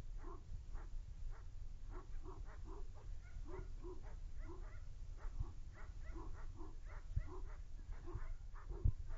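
Young male dog barking steadily at a man advancing on it, about two barks a second, defensive barking in a protection test. There is a sharp thump near the end.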